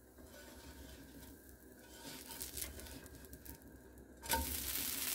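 Metal spatula scraping and tapping faintly under a dosa on a hot iron tawa; about four seconds in the dosa is flipped back onto the pan and a steady sizzle starts suddenly.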